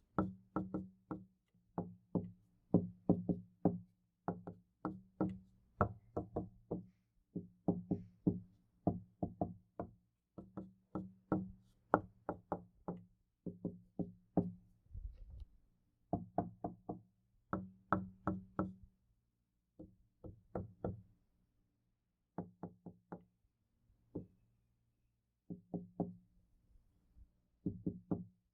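Knocking on a door in quick runs of several knocks with short pauses between runs. Each knock leaves a low, hollow ring from the door, heard in 3D (binaural) sound.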